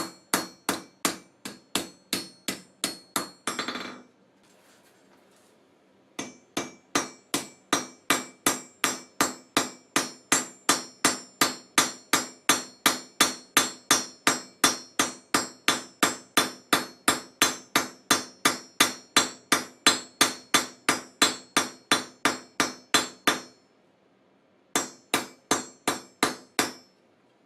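Hammer blows on hot steel, forging a silversmithing hammerhead on an anvil: steady strikes at about two to three a second, each with a short metallic ring. The hammering stops for a couple of seconds about three and a half seconds in, then runs on until a brief pause near the end and a last short run.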